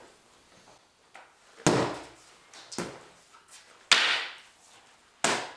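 Full-length wooden cane striking padded strike shields in turn: four sharp smacks about a second apart, the second one lighter.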